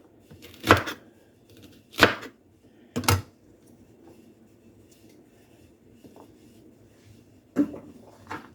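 Knife chopping okra on a cutting board: three cuts roughly a second apart, then a pause and a single knock near the end.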